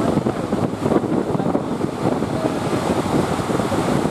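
Wind buffeting the microphone over rushing surf.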